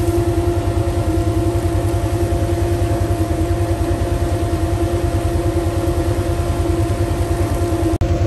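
Vehicle engine idling steadily close by: an even low throb with a steady hum over it.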